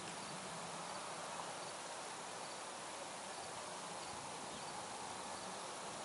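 Distant combine harvesting corn, heard as a steady, even hiss with a faint low hum.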